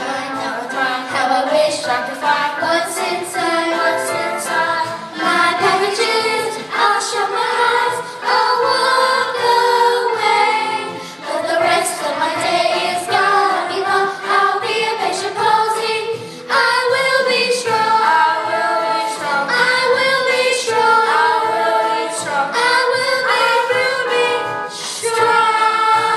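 A children's choir singing in unison, sung melody throughout with brief dips between phrases.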